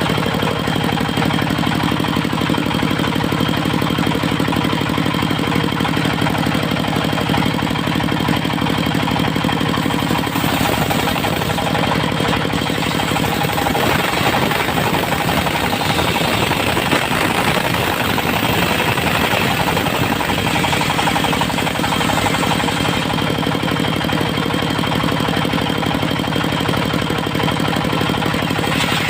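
Engine of a portable circular-saw sawmill running steadily. From about ten seconds in until about twenty-two seconds a harsher, hissing noise rises over it as the blade cuts through teak.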